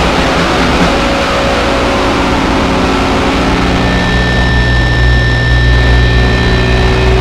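Harsh, heavily distorted noise-punk recording, a loud wall of noise. From about four seconds in it settles into a low drone with several steady, high ringing tones held over it.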